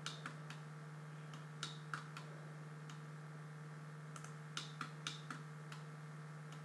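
Computer mouse clicking as corner edges of a CAD model are selected, in small groups of two to five quick clicks with gaps between, over a steady low electrical hum.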